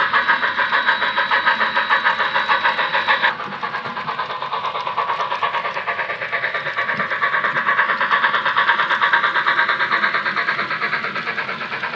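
Model steam locomotive sound chuffing in a quick, even rhythm of about four to five beats a second as the engine runs. A thin steady whine sits under the chuffs for the first few seconds, then cuts off, and the chuffing goes on a little softer.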